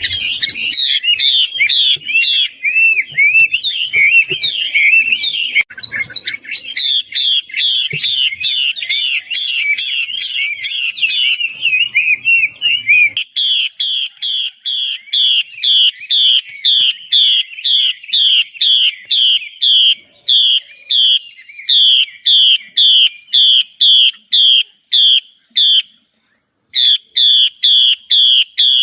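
Chinese hwamei, labelled a female, calling: a fast, varied warble of gliding notes for about the first half, then one note repeated evenly about twice a second, with a brief break near the end.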